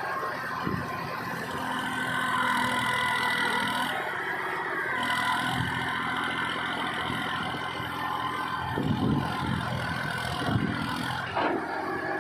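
Massey Ferguson 241 backhoe loader's diesel engine running steadily, with the engine note rising for a couple of seconds about two seconds in, then a few dull thumps in the second half.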